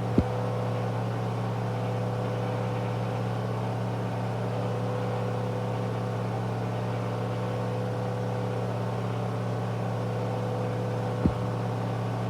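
Candy front-loading washing machine on its final spin at high speed, about 1000 rpm: a steady hum with a steady higher tone above it. Two brief clicks, one just after the start and one near the end.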